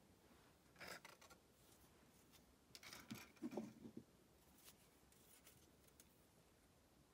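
Plastic model kit parts being handled at a work table: a soft rustle about a second in, then a cluster of small clicks and knocks a little after the middle, and a few faint ticks.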